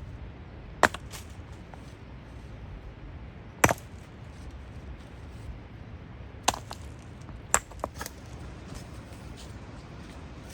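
Sharp, irregular strikes of a tool on wood, about five of them, the loudest near the start and in the middle, over a steady low background rumble.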